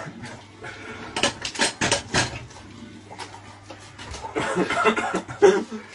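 Two spells of quick clattering and knocking of kitchen things, about a second in and again near the end; a man's voice sounds through the second spell.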